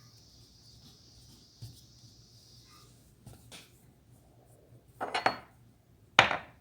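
Small hard objects handled on a tabletop: a few light clicks, a short clatter about five seconds in, then one sharp knock just after six seconds.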